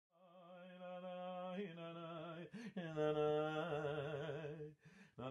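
A man singing long held notes, his voice alone, with a slow vibrato on the longer notes in the middle and two short breaks for breath.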